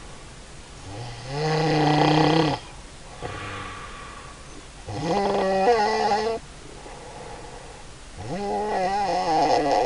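A woman snoring: three long, loud snores about three and a half seconds apart, each with a clear pitch that rises at its start, with quieter breaths between them.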